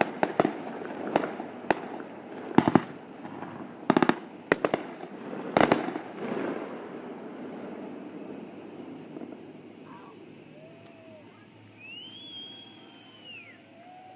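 Fireworks going off over a lake: a quick string of sharp bangs and crackles, some in close pairs, each with an echoing tail, through the first six seconds, then fading away.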